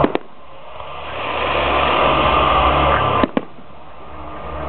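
Aerial fireworks shells bursting: a sharp double bang at the start and another about three seconds in. Between them runs a steady noisy rumble that dips after each bang and swells back.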